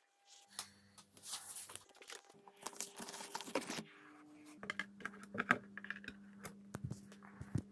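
Quiet handling of a vinyl record: rustling and sliding noises, then a run of light clicks and taps as a hand works the record on the turntable, over a faint steady hum.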